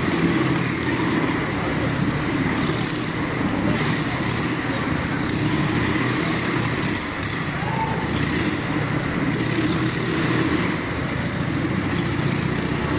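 Motorcycle engine running steadily as the bike circles the vertical wooden wall of a Wall of Death drum, with several brief swells of hiss.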